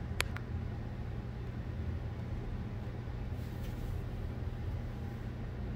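Steady low rumble with a faint hiss, and one sharp click just after the start.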